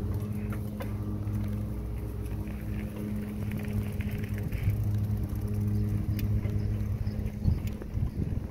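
A bicycle riding along a trail: a steady low hum and rumble.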